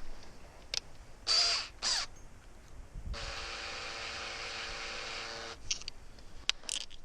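Drill motor spinning steadily for about two and a half seconds in the middle, while the pilot-hole bit is being readied. Before it come two short harsh sounds.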